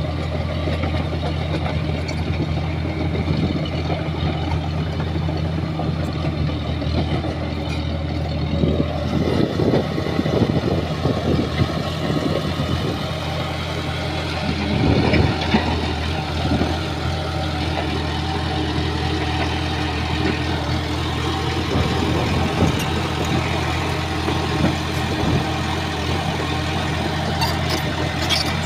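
Shantui bulldozer's diesel engine running steadily, with a few louder, rougher stretches of noise from the machine at work partway through.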